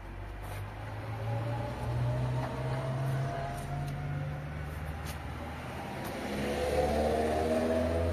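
A motor vehicle engine running steadily, then revving up with a rising pitch near the end.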